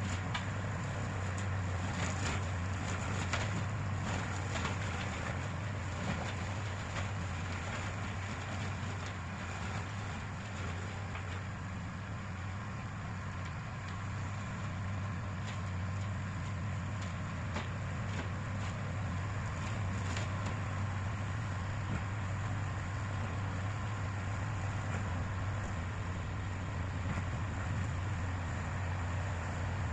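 Tractor engine running steadily at a constant speed, with scattered short knocks and cracks over it.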